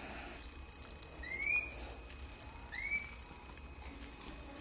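White canary nestling giving thin, high begging cheeps while being hand-fed from a feeding tube: a handful of short chirps spread through, with a couple of rising squeaks.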